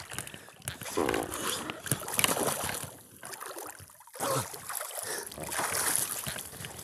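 Water splashing and sloshing in uneven bursts as a swimmer kicks and paddles, pushing a foam board through a lake.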